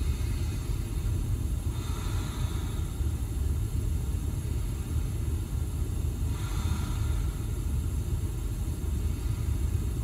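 Steady low rumble, with two soft breath sounds about two and six and a half seconds in: slow, deep breathing.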